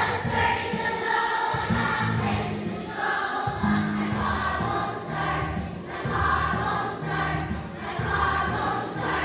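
A choir of children singing a song together over instrumental accompaniment, in phrases with short breaths between them.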